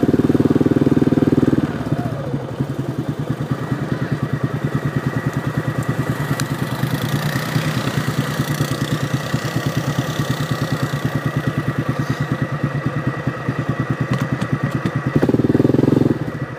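Off-road vehicle engine revving high, dropping after about two seconds to a lower, evenly pulsing run, then revving up again briefly near the end.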